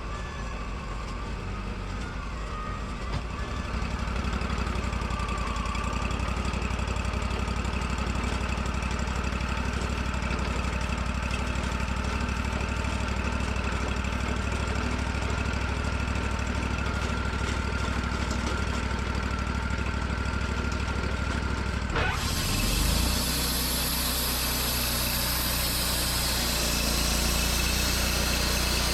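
Wood-Mizer LT40 band sawmill running steadily with its engine hum. About 22 seconds in the sound changes suddenly, with a brief falling sweep and then a brighter, hissing noise on top of the engine.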